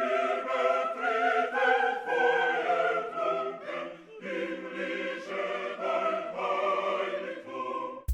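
Choral music: a choir singing sustained chords that shift every second or so, cutting off abruptly at the very end.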